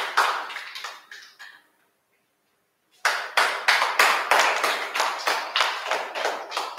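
A small group of people clapping by hand. The applause dies away about two seconds in, stops for about a second, then starts up again and carries on.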